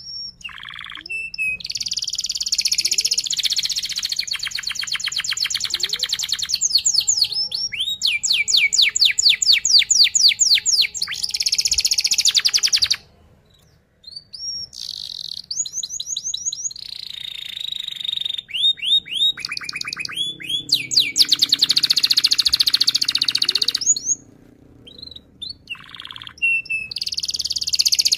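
Domestic canary singing a rapid rolling song: long runs of fast repeated trilled notes. It breaks off briefly about 13 seconds in and pauses again about 24 seconds in before resuming.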